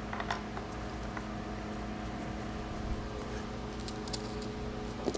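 Faint, scattered clicks of small steel bolts being picked up and fitted to a Maytag 72 engine base, over a steady low hum.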